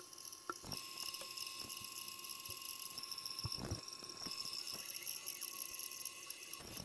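3018 PRO desktop CNC engraving with its blue diode laser: the stepper motors give a steady high whine of several tones that shift as the head moves, with a few faint clicks.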